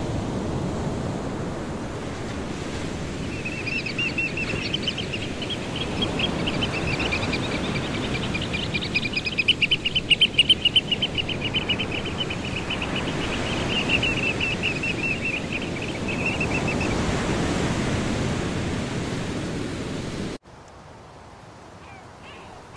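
Surf washing on a shore, with an oystercatcher giving a long, rapid run of high piping notes that grows loudest in the middle and stops after about thirteen seconds. The surf cuts off suddenly near the end, leaving a much quieter background.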